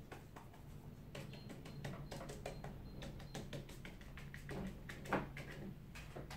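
Paintbrush dabbing on watercolour paper: a run of quick, soft, irregular taps as leaves are stippled in, over a low steady hum.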